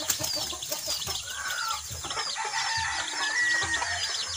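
Chickens clucking, with a dense chatter of many short, high, falling chirps from small birds running underneath.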